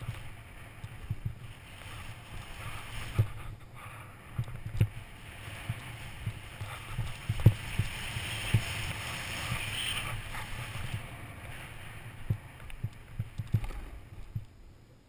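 Snowboard sliding and carving over powder and groomed snow, heard through a helmet-mounted GoPro Hero2: a hiss of snow under the board that swells and then dies down near the end, with irregular low knocks as the board rides over bumps.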